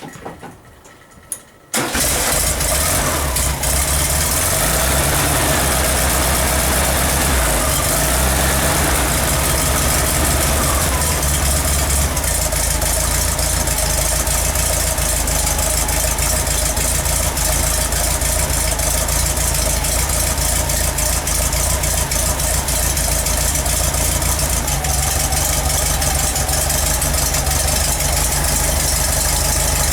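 Freshly built 1776 cc Volkswagen air-cooled flat-four engine being test-fired: it starts suddenly about two seconds in and then runs steadily at idle.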